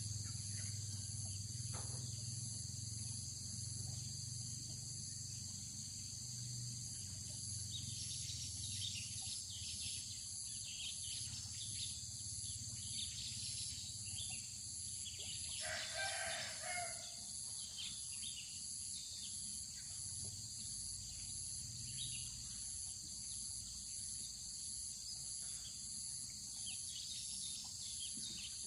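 Steady high drone of insects, with a rooster crowing once about halfway through.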